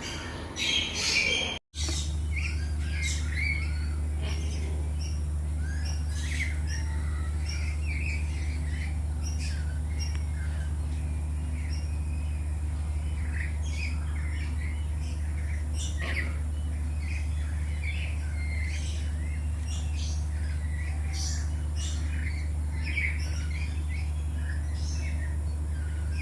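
Many birds squawking and chirping in short, scattered calls over a steady low hum. A brief louder sound comes at the start, then the sound cuts out for an instant just before two seconds in.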